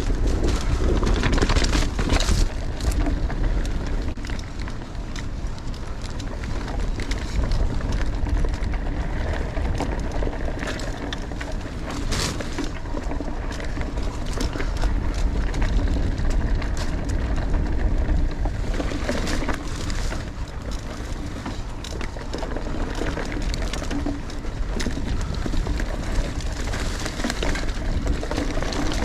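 Riding a 2018 Giant Stance 2 full-suspension mountain bike on a dirt trail: wind rushing over the microphone with steady tyre rumble, and frequent sharp clatters and knocks as the bike goes over bumps.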